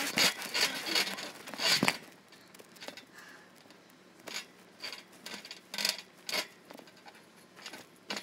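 Scuffs and scrapes on a trampoline mat close to the microphone: a quick run of them in the first two seconds, then single short ones every half second or so.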